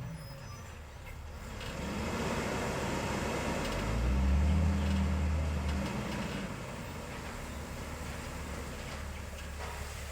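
Diesel engine of heavy road-construction equipment running, with a surge in engine sound about four seconds in that lasts a couple of seconds before it settles back to a steady hum.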